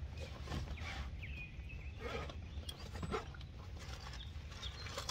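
Faint, scattered short bird calls: a few brief chirps and clucks with small pitch glides, over a steady low background noise.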